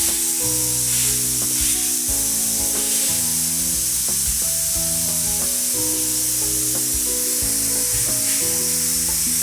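Background music: a melody of held notes stepping to a new pitch every half second or so, over a steady high hiss.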